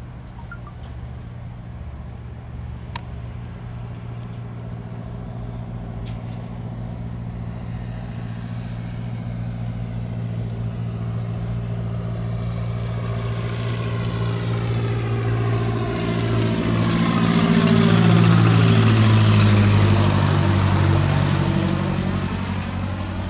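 Single-engine propeller light aircraft, a Socata Rallye 110ST with a four-cylinder Lycoming piston engine, running at low power as it lands. It grows steadily louder, passes close about three-quarters of the way in with a slight drop in pitch, then fades a little.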